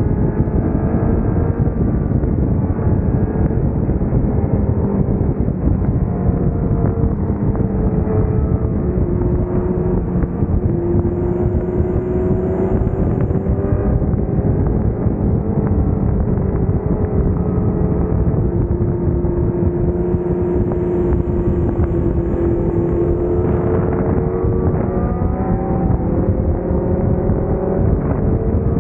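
Honda CBR1000RR inline-four sport bike engine running at speed, its pitch rising and falling with the throttle through the bends, over heavy wind rush on the microphone.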